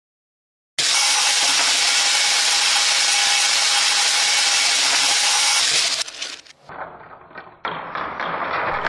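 Small plastic beads pouring out of a toy garage and scattering across a hard surface: a loud, dense rattle starts about a second in and cuts off suddenly after about five seconds, followed by scattered clicks as the last few beads drop and bounce.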